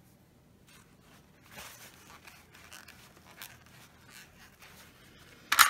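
Faint, irregular scratchy handling sounds of a dotting tool and paint at a work table, with one short, sharp click or tap near the end, much louder than the rest.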